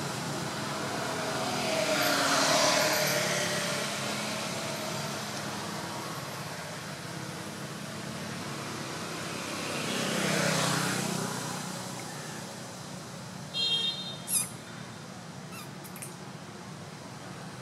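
Road traffic passing: two vehicles swell up and fade away, about two seconds in and again about ten seconds in, over a steady outdoor hum. Near the end comes a brief high-pitched squeal or beep.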